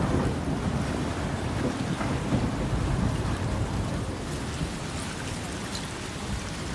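Boat's hull pushing through floating broken ice as it comes alongside a dock: a steady low rumble with a crackling hiss of ice, easing slightly towards the end.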